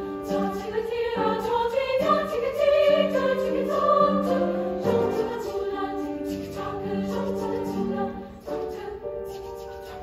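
A mixed choir singing sustained chords in harmony, swelling louder a few seconds in and growing softer near the end.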